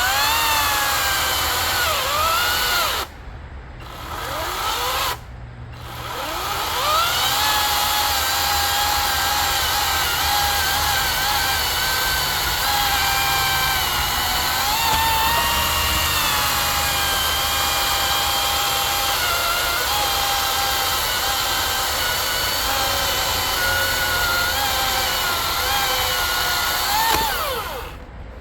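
Cordless battery chainsaw motor spinning up, cutting out twice briefly in the first few seconds, then running under load through oak for about twenty seconds, its whine dipping and recovering as the chain bites. Near the end the whine rises as the load comes off, and the saw stops.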